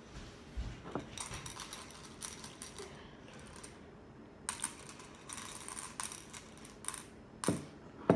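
Skittles candies clicking and rattling against a ceramic bowl as fingers rummage through them, in two spells, with a few knocks, the loudest at the very end.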